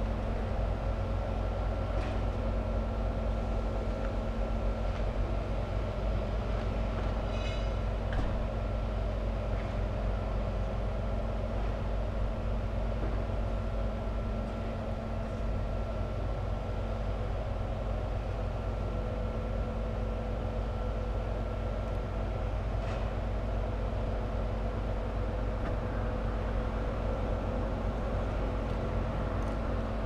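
Heavy construction machinery's diesel engine running steadily, a constant low hum with a few faint clicks, including a short quick run of clicks about eight seconds in.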